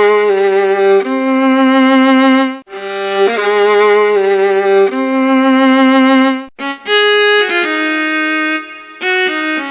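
Violin music played in long held notes with vibrato. A short phrase plays twice, then a different, brighter passage begins about six and a half seconds in.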